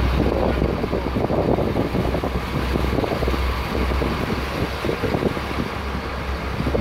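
Wind buffeting the microphone aboard a boat at sea, a choppy rushing noise over a steady low rumble.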